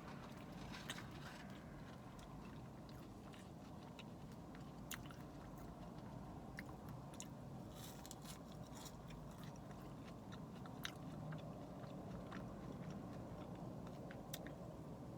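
Close-up chewing and biting of Chick-fil-A waffle fries, with scattered soft crunches and mouth clicks, over a steady low hum.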